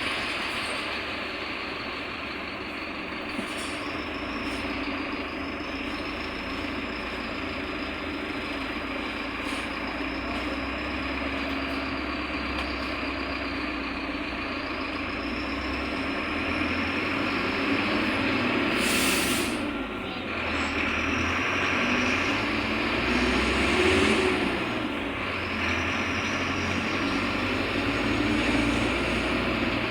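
Mercedes-Benz OF-1721 BlueTec 5 bus running, its engine note swelling and easing as it drives. A short burst of air hiss from the air brakes comes about 19 seconds in.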